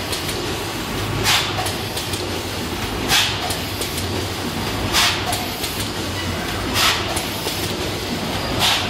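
Automatic packaging machine feeding flat cardboard blanks, running with a steady mechanical hum and rattle. A short hiss comes about every two seconds in a regular rhythm.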